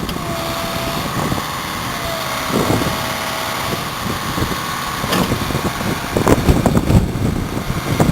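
JCB 8085ZTS excavator's Isuzu four-cylinder diesel running, with a thin steady whine over it for the first few seconds. Sharp irregular knocks and clanks come in over the engine in the second half.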